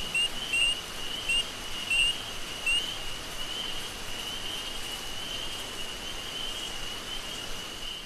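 Tropical forest ambience: a steady, high insect drone over an even hiss. For the first three seconds or so, a short rising chirp call repeats about every two-thirds of a second.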